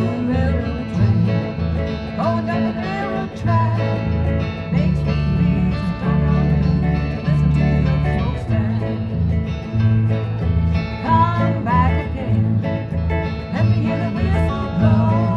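Live acoustic country music: a guitar played with an alternating bass-note rhythm, with a bending, sliding melody line on top, as an instrumental break between sung verses.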